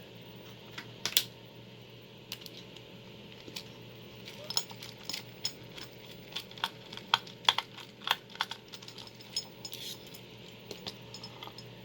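Scattered small metallic clicks and taps of a Yaled padlock and a Phillips screwdriver being handled as the lock is taken apart.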